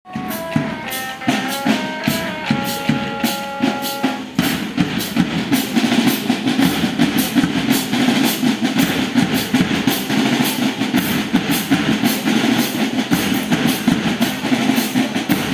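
A school marching band playing: a short tune on a melodic instrument over drums for the first four seconds, then drums alone. The snare and bass drums beat steadily in a marching rhythm.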